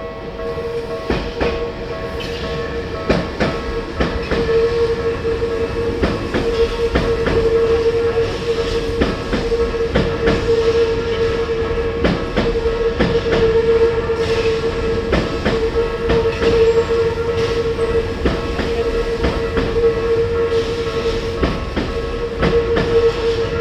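Electric train passing at a level crossing, its wheels clacking irregularly over the rail joints, with a steady tone sounding over the rumble.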